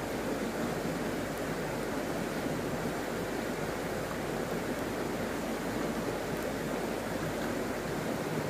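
Steady rush of water from a small stream flowing over stones.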